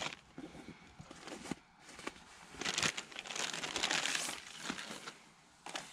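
Resealable plastic food bag crinkling and rustling in the hands as cheese slices are taken out of it. The rustling is faint at first and loudest from about three to four and a half seconds in.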